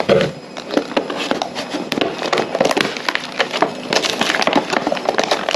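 Packaging of a circular saw jig being handled and pulled open: dense, irregular crackling and rustling.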